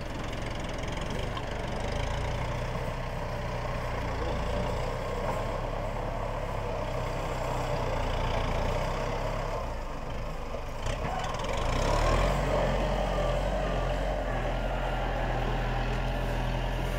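Tractor engine running steadily while the tractor levels earth with its blade, growing louder about twelve seconds in.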